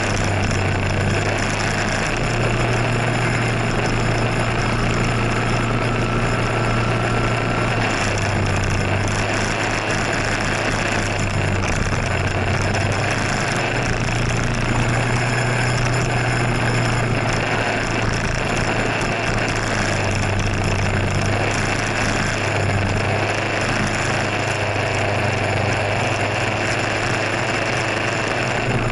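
Scooter engine running at low speed in traffic, a steady low hum that eases off and picks up slightly several times, under a constant hiss.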